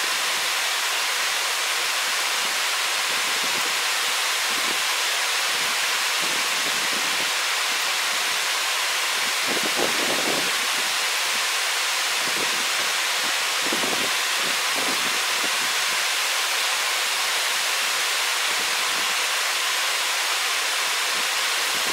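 Steady, even rushing hiss, with a few faint low thumps around the middle.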